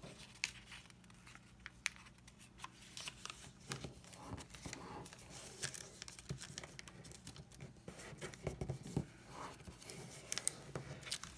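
Origami paper crinkling and rustling under the fingers as its flaps are folded in to the centre line and creased flat. The sound is faint, with scattered small crackles.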